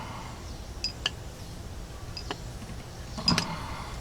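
A few short, sharp metallic clicks and taps, one about a second in, another near the middle and a double click near the end: a steel OTF knife blade being handled against a leather strop paddle.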